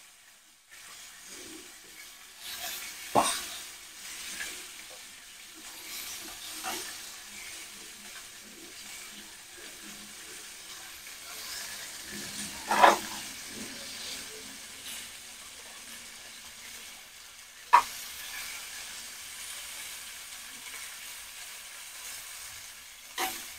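Marinated pork belly strips sizzling faintly in a stainless steel frying pan, with a few sharp clicks of metal tongs against the pan as more strips are laid in.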